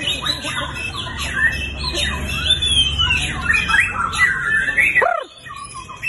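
White-rumped shamas singing in hanging contest cages: a dense, overlapping run of whistles, chirps and rising and falling notes, breaking off about five seconds in.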